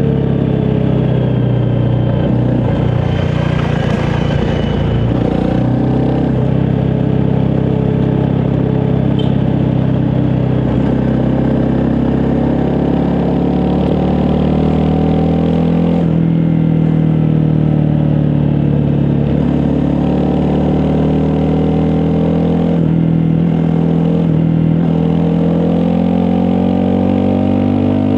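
Honda CRF250 Rally's single-cylinder 250 cc engine running under way at varying throttle, its pitch dipping and climbing several times as speed changes. There is a brief clatter about four seconds in.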